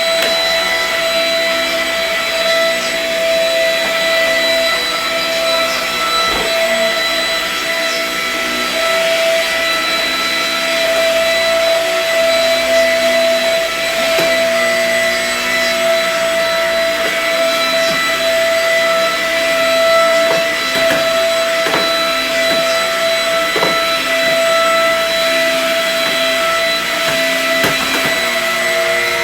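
Vacuum cleaner running steadily, its motor giving a constant high whine, with a few short clicks and knocks scattered through.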